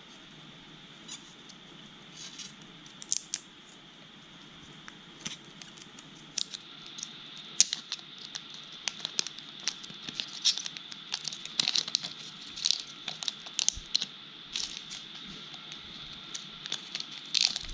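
Packaging being handled and opened by hand: irregular crinkling, rustling and tearing with scattered small clicks, sparse at first and busier from about five seconds in. A steady low hum from air conditioning runs underneath.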